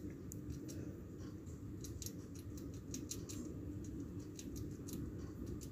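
Faint scratching and small irregular ticks as denim pocket pieces are marked and handled on a table, over a low steady hum.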